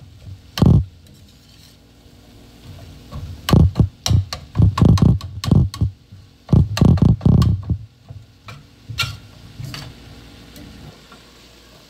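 Plastic slotted spatula stirring ground meat and vegetables in a stainless steel skillet: irregular scraping and dull knocks against the pan, in two bunches of strokes, then a few lighter clicks.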